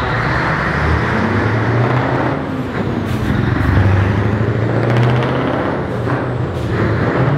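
Scania V8 truck engine and exhaust running inside a tunnel as the truck drives slowly past: a loud, deep, steady exhaust note that swells a little about four seconds in.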